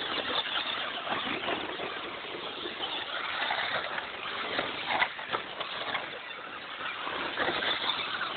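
Electric radio-controlled off-road cars running on a dirt track: an uneven rushing whir of motors and tyres, with a sharp knock about five seconds in.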